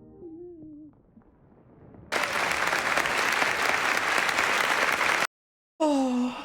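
Applause that starts suddenly about two seconds in and cuts off abruptly about three seconds later, after faint music fades out. A short falling vocal sound follows near the end.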